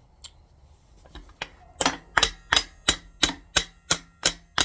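Metal-on-metal hammer blows on a distributor seized in a Ford 351M block. One blow comes shortly after the start, then a steady run of about three blows a second follows from a little under two seconds in.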